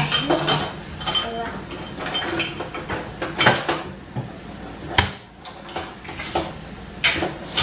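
Spoon clinking, knocking and scraping against a cooking pot as rice is stirred into a bean stew, with several sharp ringing knocks.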